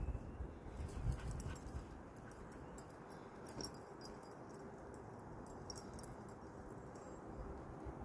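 Faint steady hum of distant road traffic, with a few low thumps in the first second and light scattered clicks and rustles.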